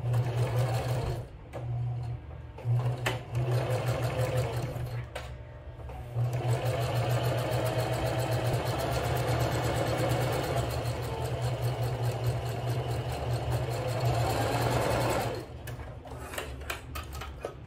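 Electric sewing machine stitching a seam through fabric: a few short runs with brief stops, then one long steady run of about nine seconds that stops near the end.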